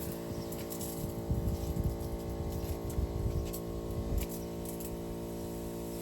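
Small pump motor of a pesticide sprayer running with a steady hum, with irregular low thumps and rustling from handling.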